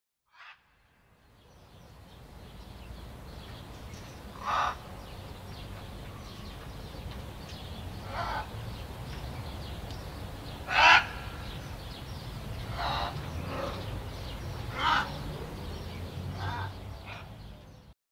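Birds calling now and then over a steady outdoor ambience: about seven short, loud calls spaced a few seconds apart, the loudest about eleven seconds in.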